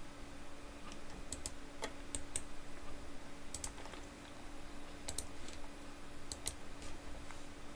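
Computer mouse buttons clicking: about a dozen short, sharp clicks, several in quick pairs, over a faint steady hum.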